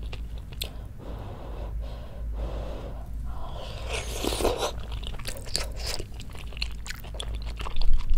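Close-miked eating: breathy sounds, then a slurp from a wooden spoonful of glass noodles and beef large intestine in spicy broth about four seconds in, followed by wet chewing clicks.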